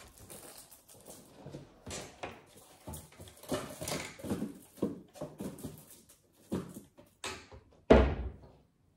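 Kitchen handling noises: a run of small knocks, clinks and rustles as things are moved about on the worktop, then a louder, heavier thump near the end.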